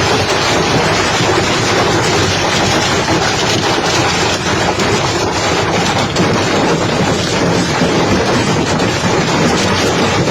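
Heavy hail pelting down, a dense, steady clatter of countless hailstone impacts.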